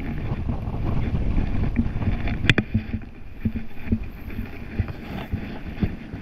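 Wind buffeting the camera microphone in a steady low rumble, with scattered handling knocks and one sharp click about two and a half seconds in.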